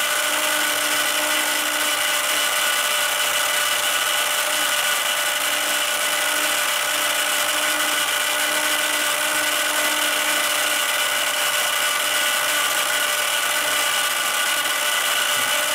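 Small electric motor of a spin-art toy whirring steadily as it spins the paint platter on its slow setting: an even whine with a low hum, unchanging throughout.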